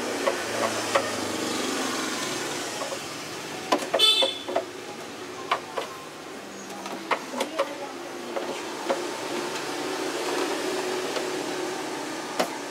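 Scattered clicks and light taps of a screwdriver working the screws on the plastic back panel of a Polytron mini compo stereo, with one sharper metallic clink and a brief ring about four seconds in. A steady rushing background noise swells and fades underneath.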